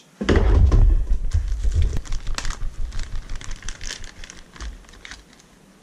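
Plastic parts bag being handled and crinkled, with many small crackles and rustles. It opens with a heavy, low rumbling thump lasting about a second and a half, something knocked against the table near the microphone.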